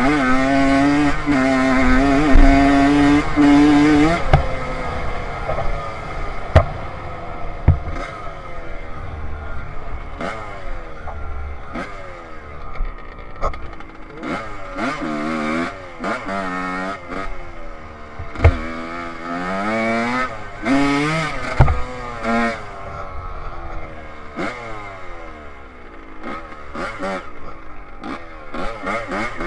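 Two-stroke dirt bike engine being ridden hard: held at high revs for the first few seconds, then winding down, then revving up and dropping back over and over, with a few sharp knocks from the bike hitting bumps.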